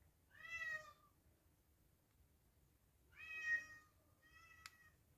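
A domestic cat meowing three times: one short meow about half a second in, then two more about three and four seconds in. A single sharp click falls during the last meow.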